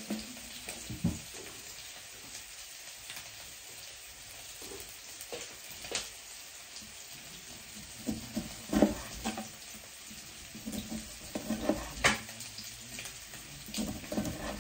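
Chef's knife slicing a lemon on a wooden cutting board: soft wet cutting with a sharp knock of the blade on the board every few seconds.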